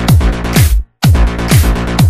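Electronic dance music with a steady kick drum about two beats a second, cutting out completely for an instant about a second in.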